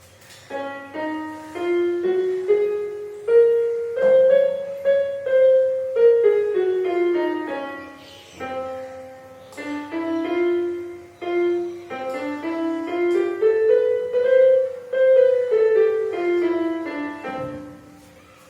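Casio CT-S200 Casiotone portable keyboard played with a piano tone: a melody of single notes stepping up and then back down in phrases, with a short break about eight seconds in.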